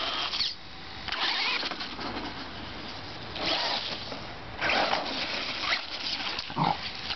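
An RC truck's motor and tyres running in several bursts of a second or so as it is driven, with short quieter gaps between.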